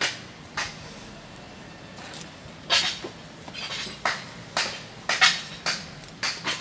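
Irregular sharp clinks and knocks of hard debris, about one or two a second, some with a metallic ring.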